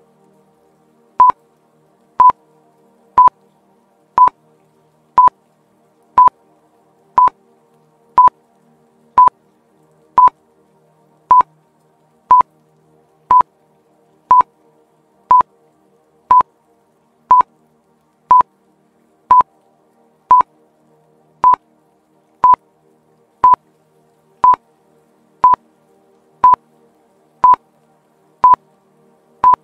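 Countdown timer beeping: one short, identical electronic beep about once a second, ticking off the seconds left to answer a quiz question.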